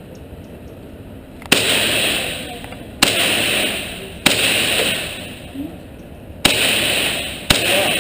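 Five gunshots at uneven intervals, each followed by a long echoing decay.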